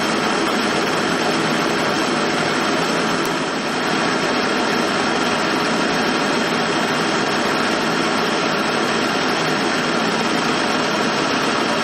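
Monarch engine lathe running under power, its spindle and gearing making a steady mechanical whirr with a slight dip in level about four seconds in.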